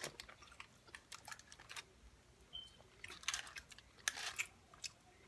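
Close-up eating sounds of a person chewing and biting food, with clusters of short, crisp clicks and smacks.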